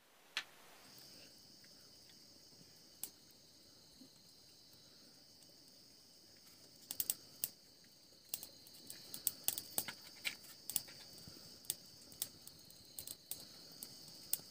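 Faint, steady high-pitched chirring of insects, with a small wood fire crackling under it: sharp pops and snaps that come thick and fast from about seven seconds in as the kindling catches.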